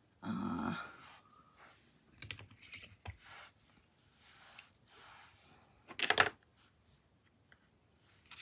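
Small clicks, taps and rustles of craft supplies being handled on a tabletop, with a louder, brief clattering rattle about six seconds in.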